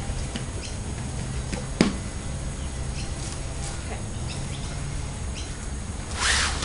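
Handling noises while gear is set up in an inflatable kayak: a sharp knock about two seconds in and a short burst of rustling near the end, over a steady low rumble.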